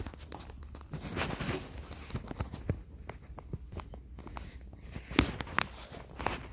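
Footsteps scuffing over a gritty, sawdust-strewn concrete floor: an irregular run of soft steps and scrapes, with one sharper click about five seconds in.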